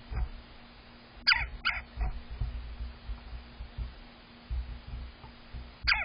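Red-bellied woodpecker calling: two short, sharp calls about a second in and one more near the end. Under them come low knocks as the bird pecks at suet and shifts on the cage feeder.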